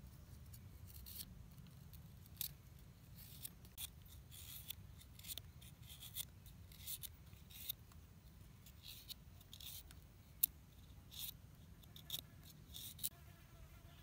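A knife slicing a peeled root into thin shreds: a string of short, crisp cutting strokes at an irregular pace, one sharper cut about ten seconds in.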